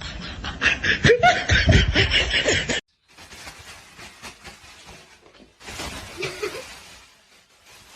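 A person laughing, loud and broken up, until the sound cuts off suddenly about three seconds in. The rest is much quieter, with faint rustling and a short voice-like sound a little after six seconds.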